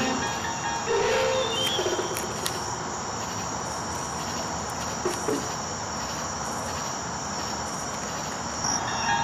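Crickets chirping steadily, with music coming in near the end.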